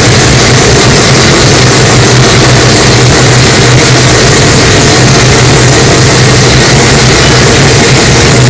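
Mazda 787B's four-rotor racing rotary engine running at a steady, unchanging pitch. The recording is boosted to full scale, so the sound is very loud and heavily distorted.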